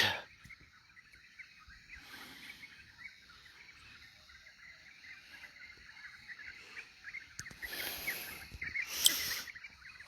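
Small birds chirping and twittering faintly and irregularly, with a sharper, louder high chirp near the end. Two short rushes of noise come through, one about two seconds in and a longer one towards the end.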